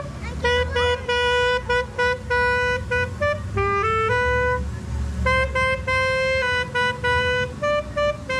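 A saxophone playing a slow melody, one held note at a time, over low street and traffic noise.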